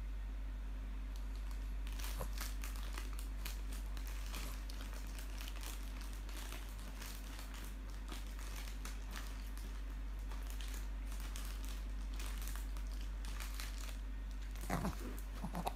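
Plastic wrapping crinkling with small crackles on and off, starting about two seconds in, over a steady low hum. A couple of short pitched, voice-like sounds come near the end.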